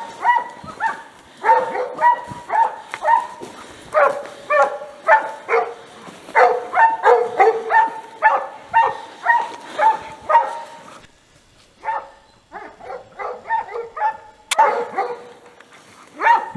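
Coyote hounds barking in a quick, steady string of bawls, about two or three a second: dogs baying a coyote they hold at bay in the trees. The barking drops off for a few seconds after the middle, and a single sharp click comes just before it picks up again.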